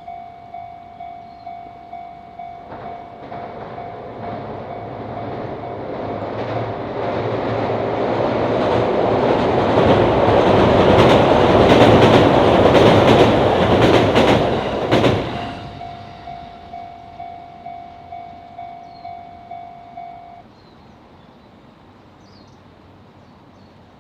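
Japanese level-crossing alarm ringing its electronic 'kan-kan' bell, about two strokes a second, while a JR Hachiko Line train passes. The train's rumble swells over several seconds, peaks with a run of wheel clacks over rail joints, and drops away quickly. The bell stops near the end, once the train has cleared.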